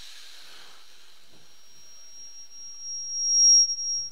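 A single steady high-pitched whistle from public-address feedback, starting about a second in and swelling louder over the next two seconds, over a faint hiss.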